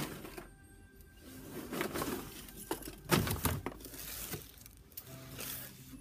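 Plastic sheeting and a cardboard box being handled, rustling and crinkling irregularly, with a louder bump a little after three seconds in.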